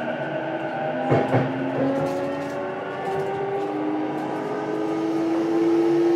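JR East E233-series electric train heard from inside a motor car, with the whine of the traction motors and inverter rising gently in pitch as the train picks up speed, over the rumble of wheels on rail. Two sharp knocks come about a second in.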